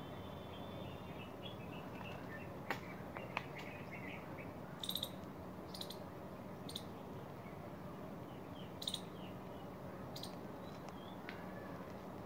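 Small animals chirping: brief high-pitched chirps every second or so, some in quick runs of two or three, with faint twitters early on, over a steady background hiss. Two sharp clicks come about three seconds in.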